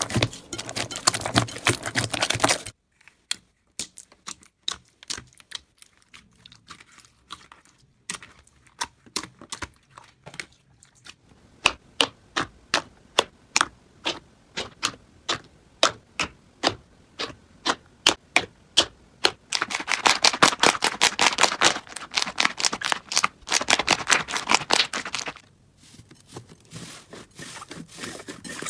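Slime being pressed and squeezed by hand, giving sharp crackling clicks and pops, about two a second for a long stretch, with bursts of dense crackling at the start and again near the end.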